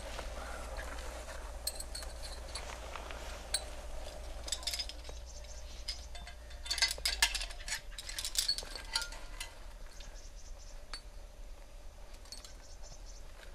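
Metal climbing hardware, carabiners and quickdraws racked on a climber's harness, clinking and jangling as he moves, with a dense flurry of clinks and scrapes in the middle.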